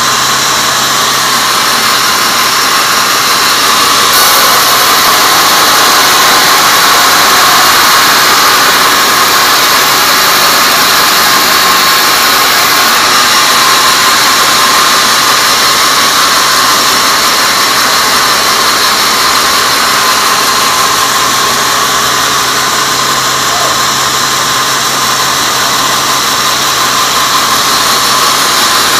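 Band sawmill blade cutting through a teak log: a loud, steady hiss of the blade in the wood over a low hum from the machine.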